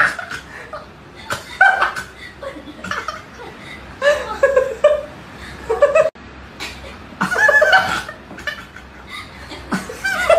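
A person laughing and chuckling in several separate bouts, with a brief break about six seconds in.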